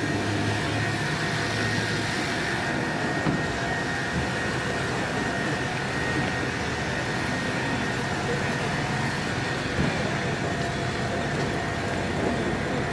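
A machine running steadily: an even hiss with a thin, high, constant whine and a low hum beneath it.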